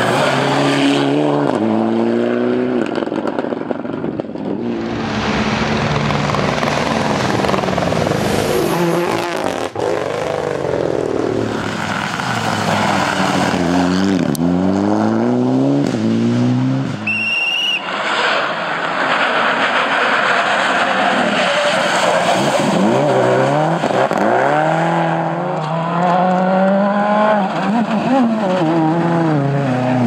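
Rally car engines at full load, revving up in steps through the gears and dropping back on the lift between corners, one car after another. The first car is a Mitsubishi Lancer Evo IX.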